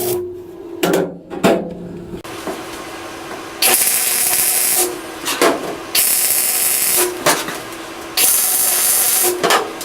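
MIG welder plug-welding an 18-gauge steel floor panel in three bursts of about a second each, with sharp hammer taps on the sheet metal between welds.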